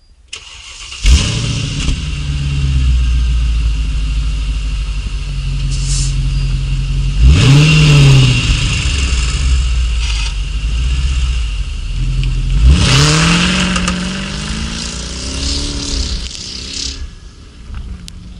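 Mercedes-Benz ML500's V8 with a tuned exhaust starting about a second in and idling. It is revved twice, each time rising and falling back, and then settles to a quieter idle near the end.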